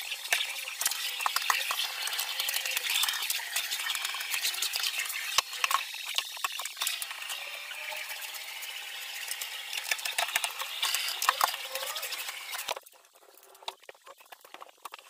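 Canister vacuum cleaner running, its nozzle scraping and crackling over a mattress, cutting off near the end; faint rustling of a bed sheet follows.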